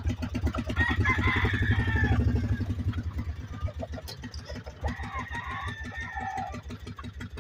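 A gamecock crows twice, about four seconds apart, over the steady pulse of a small engine idling.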